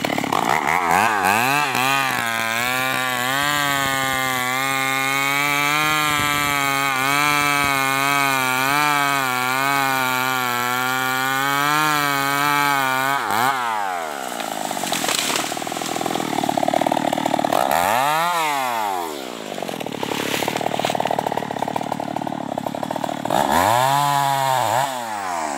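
Stihl MS 381 two-stroke chainsaw with an opened-up muffler, running at steady high revs in a cut through a tree trunk for about twelve seconds. It then drops off and is revved up and down several times.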